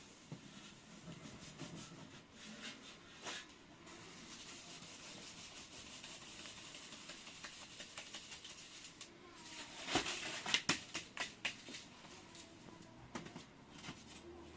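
Flour being sifted through a wooden-rimmed drum sieve: a soft, steady rustling hiss, then a quick run of taps and knocks about ten seconds in as the sieve frame is handled.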